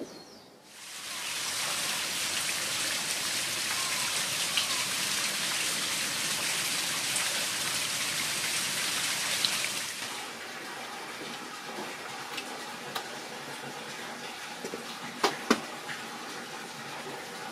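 Steady rush of flowing water that starts suddenly about a second in and cuts off after about ten seconds, with faint bird chirps. After it comes a quieter outdoor hush with a couple of sharp clicks near the end.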